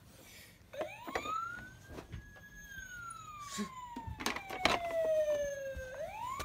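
Police siren wailing: the pitch climbs over about two seconds, falls slowly over about three, then starts climbing again near the end. A few sharp clicks and knocks sound over it.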